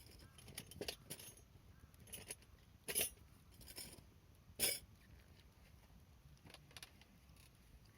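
Wood campfire crackling, with scattered sharp pops and cracks; the two loudest snaps come about three seconds and four and a half seconds in.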